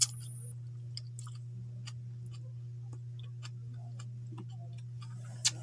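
A person eating by hand: soft chewing and small mouth clicks, about one a second, over a steady low hum. A sharper click comes at the very start and another near the end.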